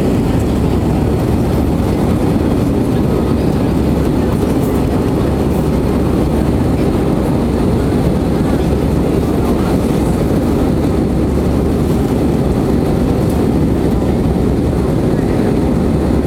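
Airbus A320 cabin noise during the climb after take-off: a steady, loud rush of jet engines and airflow, deep and even throughout.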